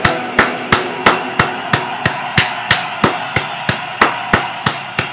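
One person clapping slowly and steadily, about two claps a second.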